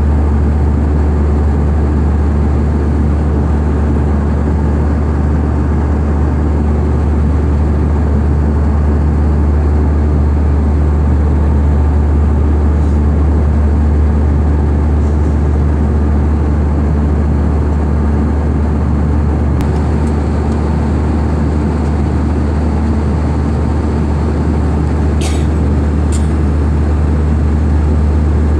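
Steady, loud, low drone of aircraft engine and air noise, as heard inside the cabin, with a couple of brief clicks near the end.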